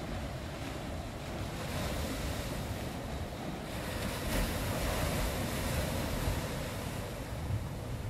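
Ocean surf: a wave washing in, swelling to its loudest a little after the middle and easing off near the end, over a steady low rumble.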